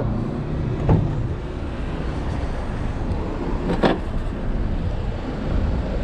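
Steady outdoor street noise: a low rumble of road traffic, with two short sharp knocks, about one second in and about four seconds in.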